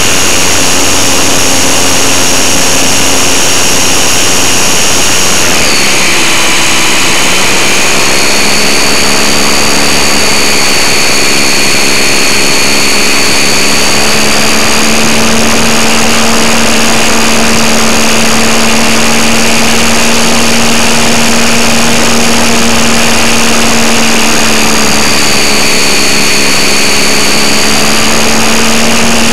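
Electric motor and propeller of a GWS Beaver radio-controlled model plane, heard loud from a camera riding on the plane: a steady drone with a high whine. The motor slows about six seconds in and picks up again within a couple of seconds, with a smaller dip in pitch near the end.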